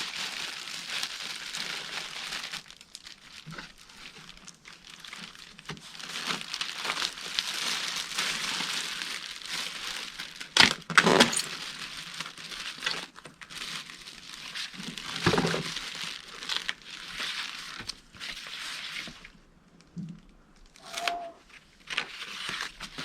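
Protective packaging on a new lawn mower being handled and pulled off, rustling unevenly, with two sharp knocks in the middle stretch.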